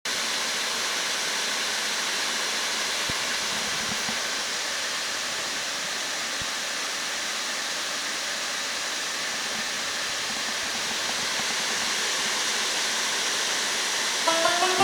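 Sharp KC-Z80 humidifying air purifier running, its fan giving a steady airy rush with no squeal in it.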